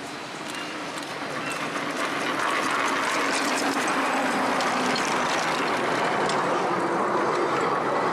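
Miniature ride-on steam train passing close by, the locomotive and its passenger carriages running on the rails with a rapid, irregular clicking. It grows louder over the first couple of seconds as it approaches, then stays steady as the carriages go past.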